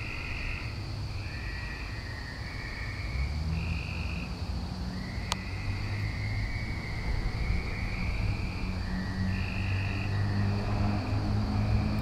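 A chorus of frogs: several calling at once in short, high calls of about half a second to a second, overlapping at slightly different pitches. A low engine rumble from distant traffic or an aircraft builds beneath them, and a single sharp click sounds about five seconds in.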